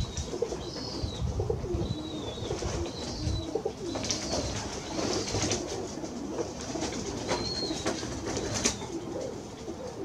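Domestic pigeons cooing steadily close by. Another bird's short, high arched chirp repeats every second or so.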